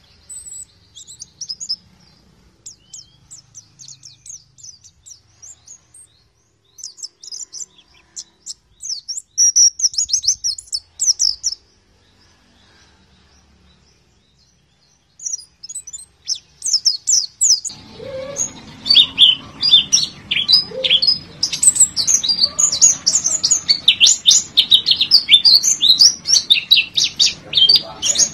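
White-eye (pleci) song: rapid, high-pitched chirps and twitters. The chirping is sparse and broken at first, with a pause of a few seconds near the middle. From about two-thirds of the way in it becomes a dense, continuous chatter over a hissy background.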